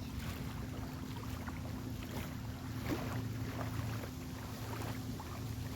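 Strong wind blowing over the microphone, with a steady low hum underneath and a few faint ticks.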